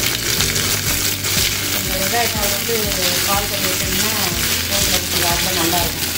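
Freshly added sliced shallots, spring onion and green chillies sizzling in hot oil in a metal pot, stirred with a wooden spatula as they sauté to soften.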